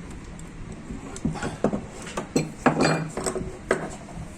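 A series of sharp metallic clinks and knocks, starting about a second in, as the inner tie rod and its parts are unscrewed and handled on a power steering rack and pinion.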